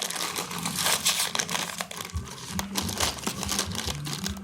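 Plastic cookie packaging crinkling and crackling as it is handled and torn open, a dense run of sharp little crackles.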